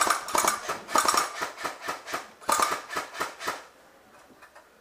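Airsoft rifle firing rapid full-auto bursts, a sharp clatter of shots in three or four groups that stop about three and a half seconds in.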